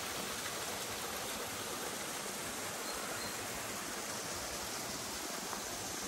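Small waterfall running in thin streams down a rock face and splashing into a pool: a steady, even rush of falling water.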